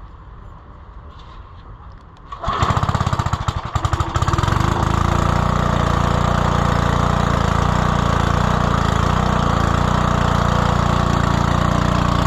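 Cold start of a snowblower's 3.5 hp Briggs & Stratton single-cylinder engine, catching on the first pull about two seconds in. It runs unevenly for a couple of seconds, then settles into a steady run.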